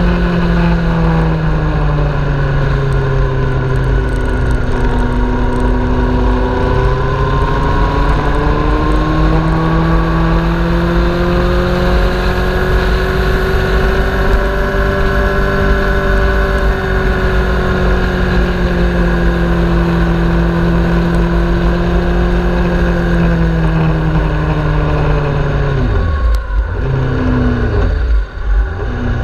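Sportbike engine running hard at track speed, its pitch falling and rising with throttle and gear changes, over a steady low rush of wind. The engine sound dips sharply twice near the end.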